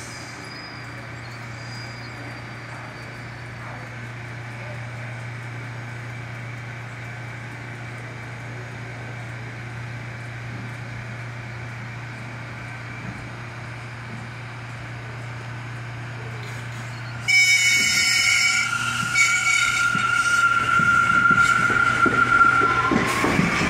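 R179 subway train standing at the platform with a steady low hum, then a sudden loud high-pitched signal sounds about 17 seconds in. The train pulls out: a held tone, then a rising whine of its traction motors over a growing rumble and wheel clatter near the end.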